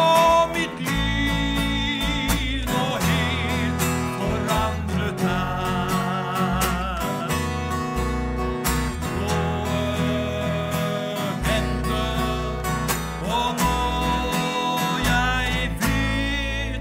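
Gospel song's instrumental passage: band music with a bass line moving under a melody that wavers in pitch.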